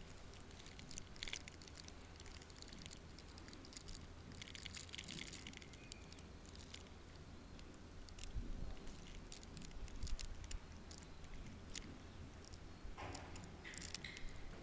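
Faint steady low rumble of a large indoor space, with scattered soft clicks and taps.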